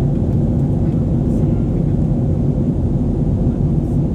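Steady cabin noise of an Airbus A320neo climbing out after takeoff: a low, even rumble of its CFM LEAP-1A turbofan engines and the air rushing past the fuselage, heard from a window seat beside the wing.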